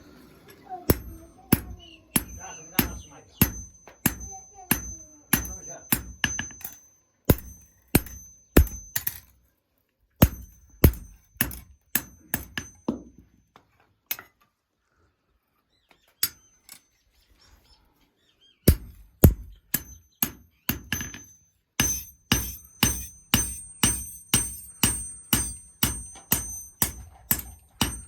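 Hand hammer striking hot metal on an anvil in a steady rhythm of about two blows a second, each blow ringing with a bright metallic tone. The blows come in runs, with a pause of a few seconds in the middle; this is hand-forging of iron.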